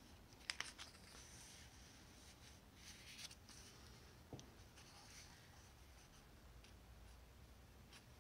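Faint scratching of a Sharpie marker's felt tip on paper, in short separate strokes with a few small ticks, as curly hair lines are drawn.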